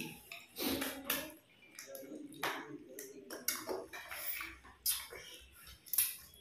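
Eating by hand: fingers mixing rice and katla fish-head curry on plates and breaking the fish head, with wet squelches, chewing and lip-smacking in irregular short clicks.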